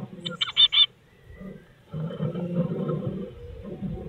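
A blue tit calling with a quick run of four short, high notes about half a second in, over a low, uneven rumbling.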